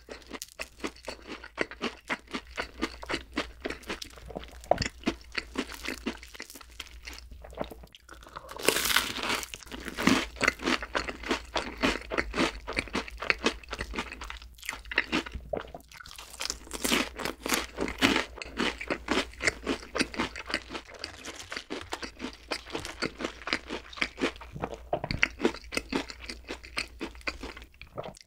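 Close-miked crunching and chewing of deep-fried menbosha (shrimp toast): a long run of crisp bites and chews. The crunching comes thickest about a third of the way in and again a little past halfway.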